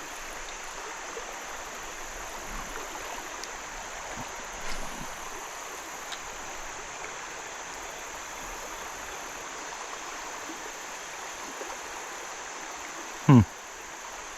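Creek water running steadily over riffles. Near the end, a brief, loud sound sweeps sharply down in pitch.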